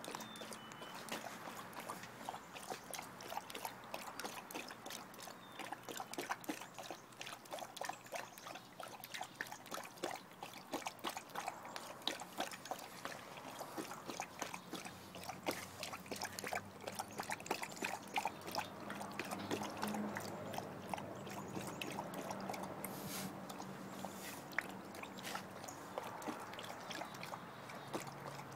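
Tibetan Mastiff lapping water from a metal bowl: a continuous run of quick wet laps and splashes.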